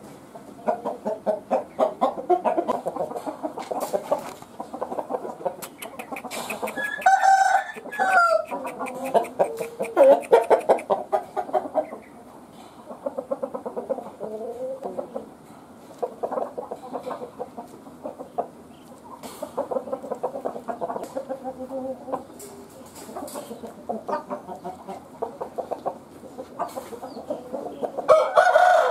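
Penned game roosters clucking and calling continuously, with a louder rooster crow about seven seconds in and another near the end.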